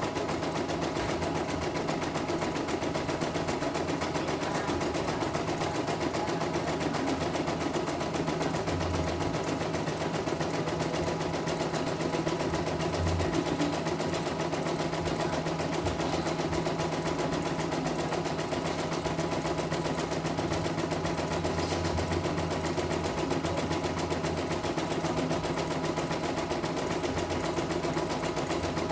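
CNY E900 portable embroidery machine stitching steadily: a fast, even needle clatter over a constant motor hum.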